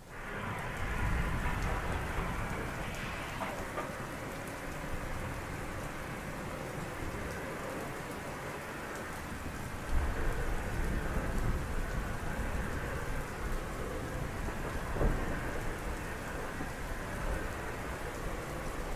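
Heavy rain falling steadily with low thunder rumbling underneath, the rumble swelling about ten seconds in and again about fifteen seconds in.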